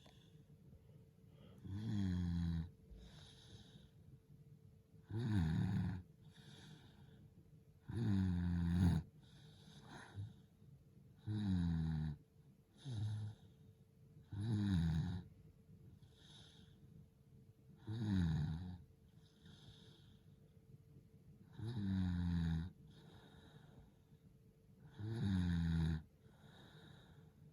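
A sleeping person snoring lightly: a snore on each in-breath about every three to four seconds, its pitch falling as it goes, with a softer breath out between snores.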